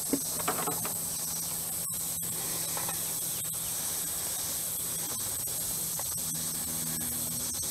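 Steady high-pitched drone of insects in the creekside woods, with a few faint short chirps near the start and about three seconds in, and a faint low hum that comes and goes.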